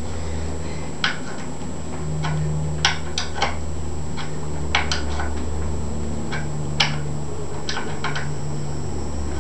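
Scattered metallic clicks and taps of a wrench tightening the oil drain plug into the engine's aluminum sump, about ten at irregular intervals, over a steady low hum.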